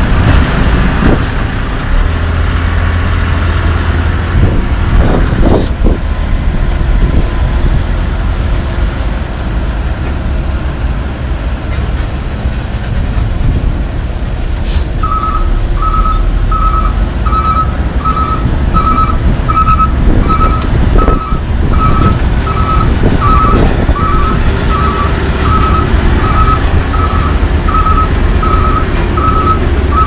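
An International dump truck and a LeeBoy 8515B asphalt paver run their diesel engines with a steady low rumble, broken by a few short air hisses. About halfway through, a reversing alarm starts beeping evenly, a little over once a second, as the dump truck backs up to feed the paver.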